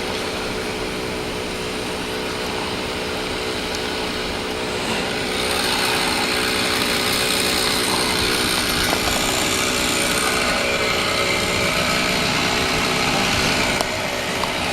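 A chainsaw running over a steady engine hum. The saw grows louder and higher-pitched from about five seconds in and drops back shortly before the end.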